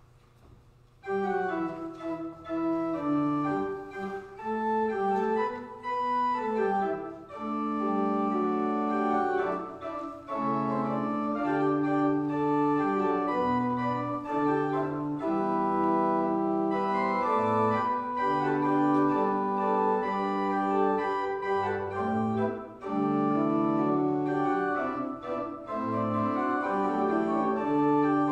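Church organ playing slow music in sustained chords, starting about a second in.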